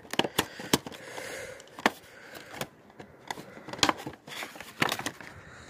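A cardboard Funko Pop box being opened by hand: scattered clicks, taps and scraping as the flap is worked open and the figure is pulled out, with a cluster of knocks near the end.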